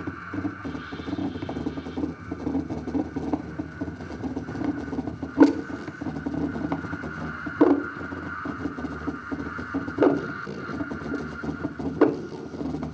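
Experimental electronic soundscape: a dense, crackling, grainy texture under a steady high tone, struck by four sharp hits spaced about two to two and a half seconds apart.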